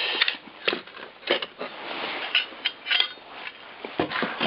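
Irregular light clinks and knocks of scrap metal pieces being handled and shifted, with a few sharper clicks about a second in and again around three seconds.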